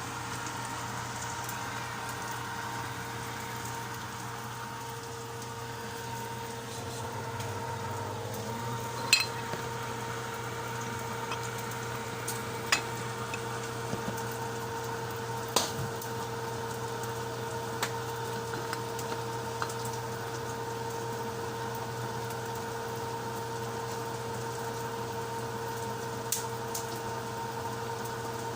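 Pinakbet vegetables cooking in a pan with a faint sizzle under a steady hum. A few sharp clinks of a utensil against the pan are heard, the loudest about nine seconds in.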